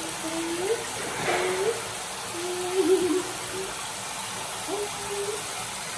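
A handheld shower head spraying water into a plastic basin, over which a baby monkey gives a series of short whimpering calls, several rising in pitch at the end.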